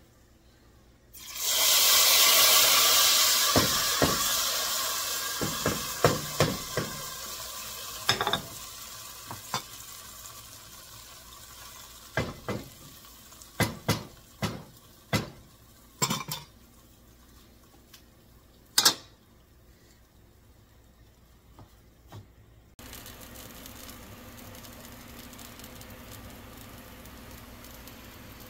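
A tempering of spices in hot oil poured into a pot of karhi, sizzling loudly as it hits the liquid and dying away over several seconds. It is followed by a string of knocks and clinks as the pot is stirred with a wooden spoon.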